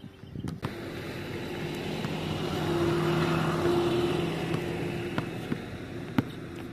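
A motor vehicle drives past, its engine hum swelling to a peak about three seconds in and then fading. A basketball bounces on the court a few times, once near the start and twice near the end.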